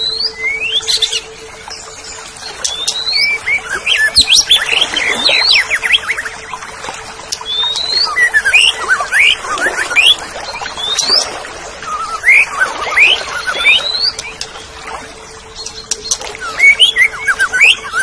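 Cucak ijo (green leafbird) singing a fast, varied run of rising whistles and chirps in bursts, with a steady low hum underneath.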